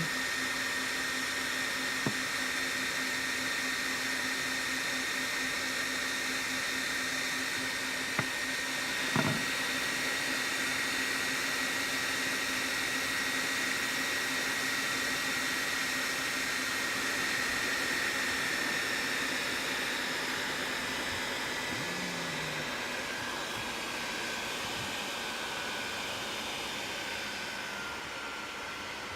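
Rack servers' cooling fans running hard with a steady rushing noise, a high whine and a low hum, as the hosts power up. Over the last third the whine slowly drops in pitch and the noise eases as the fans spin down from their start-up speed. A few faint clicks come early on.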